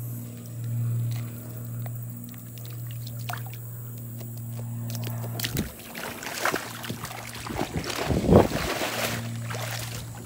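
Alligator gar thrashing and splashing in shallow water at the bank as it is released, with a run of splashes in the second half and the loudest near the end. A steady low hum runs underneath.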